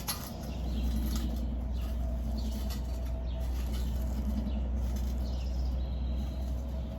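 Wind rumbling on the microphone, with light scratchy rustling and scattered small clicks from hands handling the opened tin of char cloth.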